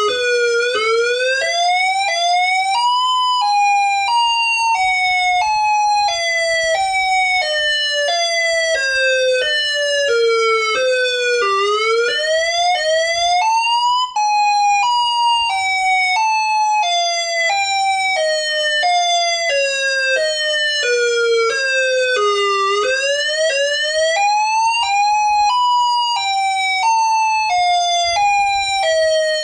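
Ion Pathfinder electronic tornado siren sounding an alternate wail. The tone climbs quickly in small steps, then falls slowly in steps, and the cycle repeats about every eleven seconds. The sound drops out for an instant about halfway through.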